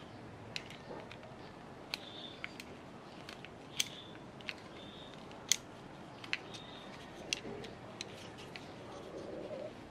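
Small metal parts of a car battery terminal being handled and fitted: about a dozen separate light clicks and clinks, several ringing briefly with a high tone.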